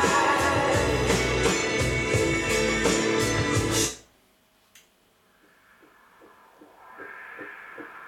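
Music with guitar played from a Technics SL-P777 CD player through hi-fi speakers, cut off abruptly about four seconds in as a front-panel button is pressed. A single click follows, then the next track comes in quietly with a soft beat of about three pulses a second.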